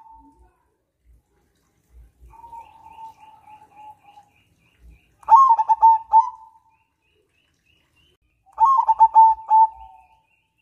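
Zebra dove (perkutut), a crossing-bred cage bird, cooing its song: a soft trill of quick notes, then two louder phrases of rapid staccato coos about three seconds apart.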